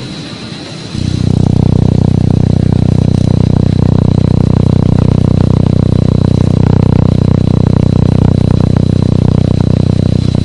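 Pulsed laser welding machine firing on a stainless steel kettle body: a loud, steady, rapid buzz of laser pulses that starts suddenly about a second in and cuts off abruptly at the end.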